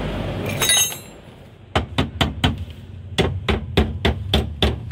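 Hammer striking the steel steering linkage: a quick run of sharp metallic blows, about four a second, beginning about a second and a half in, after a single ringing metal clink.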